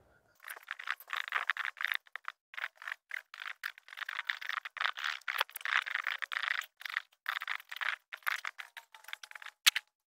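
Compost and mulch being sifted on a wood-framed wire-mesh screen over a garden cart: a rapid, irregular rattle and scrape of soil and debris worked across the mesh, with a sharper clatter near the end.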